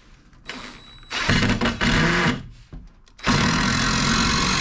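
Power drill driving a screw into a 2x4 framing board: one run of about a second, then a short pause, then it starts again near the end and keeps running.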